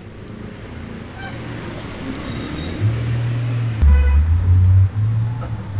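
Street traffic with a motor vehicle's engine running close by, a low rumble that swells about three seconds in and is loudest near the end.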